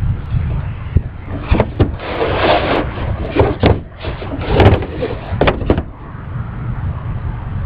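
Knocks, clicks and scuffing from the camera and a guitar being handled and shifted about, coming in a cluster over a few seconds in the middle. Under it runs a steady low wind rumble on the microphone.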